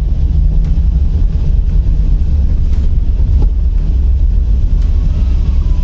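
Car driving over a brick-paved road, heard from inside: a steady, loud low rumble of engine and tyres, with scattered sharp knocks and rattles.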